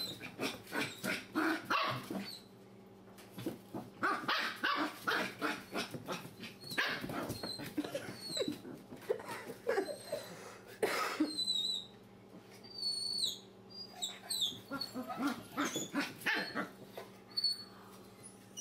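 Young puppies barking and yipping in play, in quick runs of short barks, with high thin whines and squeals in a lull about two thirds of the way through.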